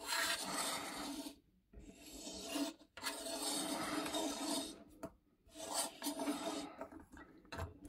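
Circle cutter's blade scraping round over paper in about four strokes with short pauses between. It is turned with light pressure, so it traces the circle without cutting through.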